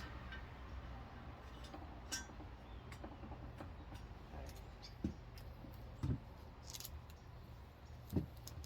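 Light metallic clicks and taps, a few scattered about a second apart, from tools and small parts being handled while the old TPMS valve stem is worked off the wheel, over a low steady hum.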